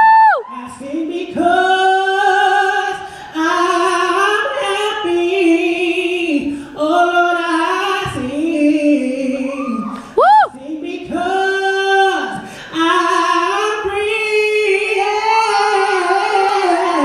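A man singing solo in a high voice, holding long notes with short breaks between phrases. He swoops sharply up to a much higher note right at the start and again about ten seconds in.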